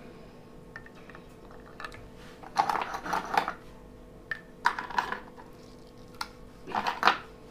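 Ice cubes dropped one after another into glasses of sattu drink, clinking against the glass in three short bursts of clicks.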